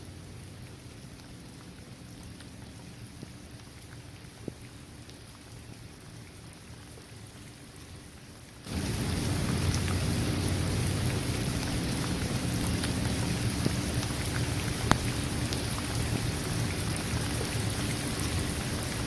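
Steady rain with scattered individual drops hitting a hard surface. About halfway through it abruptly becomes much louder, heavier rain with a deep low rumble under it.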